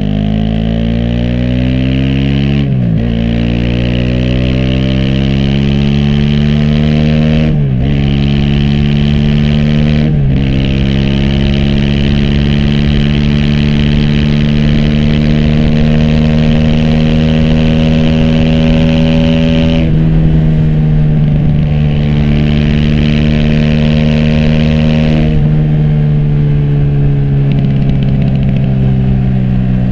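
Aprilia SX 125's single-cylinder four-stroke engine through an Arrow slip-on exhaust and racing header, accelerating hard with quick upshifts about three, eight and ten seconds in, each a sudden drop in revs before they climb again. It then runs at fairly steady revs, with another quick drop in pitch near the end.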